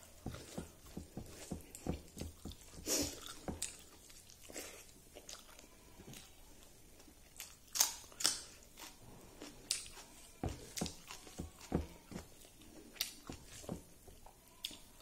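Close-miked chewing and biting of a person eating rice and vegetables by hand: irregular wet mouth clicks and smacks, with the sharpest bites about eight seconds in.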